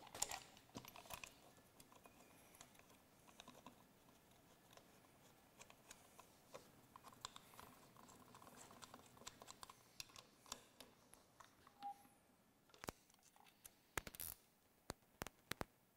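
Faint metallic clicks and taps from a mechanical fuel pump and its bolts being fitted by hand to the engine block. The taps are scattered, with a quicker run of them near the end.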